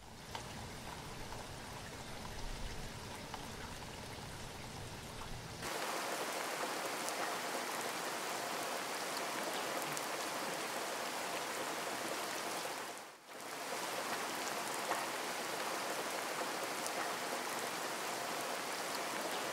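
Steady rain falling, an even hiss with scattered ticks of single drops. About six seconds in it changes abruptly to a louder, brighter rain with the low rumble gone, and it dips out briefly around thirteen seconds.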